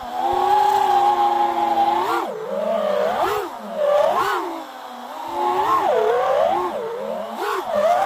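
FPV quadcopter's brushless motors and propellers whining, heard from its onboard camera. The pitch holds steady for about two seconds, then swoops up and down again and again as the throttle is punched and chopped through turns.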